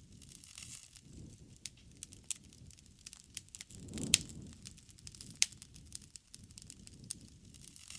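Wood fire crackling: irregular sharp pops and snaps over a low rumble of flame that swells about halfway through, where the loudest pop comes.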